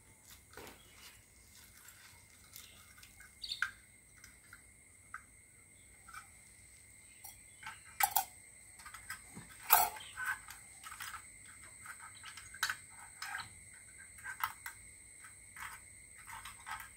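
Metal clicks and knocks from a small folding gas camping stove being handled and set down on a stone slab, the two loudest about eight and ten seconds in. Underneath, a steady high-pitched insect drone and scattered bird chirps.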